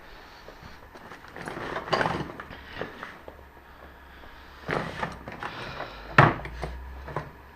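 A few scattered knocks and clunks of handling in a garage, the sharpest about six seconds in.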